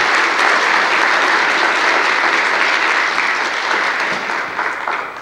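Audience applauding, a dense steady clapping that thins out and stops near the end.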